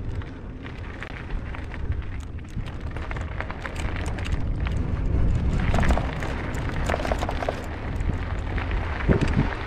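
Wind buffeting the microphone of a bicycle-mounted camera while riding along a highway: a steady low rumble with scattered small clicks.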